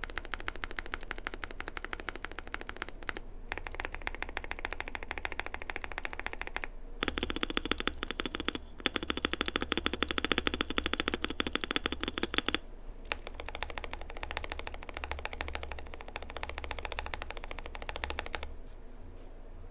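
Fast typing on a modded Keychron Q2 mechanical keyboard: lubed Gazzew Boba U4T tactile switches with 67g springs, a polycarbonate plate, foam and tape mods, and Cherry-profile keycaps. Clicks come in several quick runs separated by short pauses, loudest in the middle runs.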